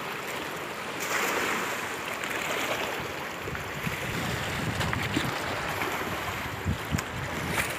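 Fast, muddy river rushing steadily, with wind buffeting the microphone. A few brief knocks near the end.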